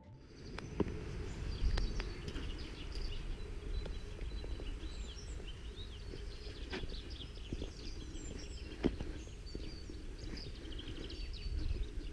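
Small birds chirping and singing, many short high calls overlapping, over a low steady rumble, with a few sharp clicks scattered through.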